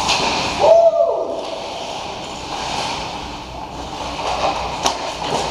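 Ice hockey play around the net: skate blades scraping and hissing on the ice, with a short held tone about a second in and sharp clicks of a stick or puck near the end.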